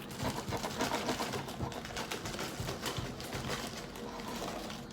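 Chewing of crunchy chips: a steady run of small, quick crunches.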